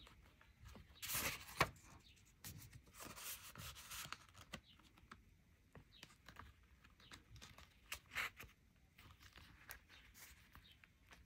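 Handling noise from a green pebbled-leather Gucci bifold wallet being opened, bent and flexed in the hands: soft rustles, scrapes and light clicks of leather and a paper insert. The sharpest sounds come about a second and a half in.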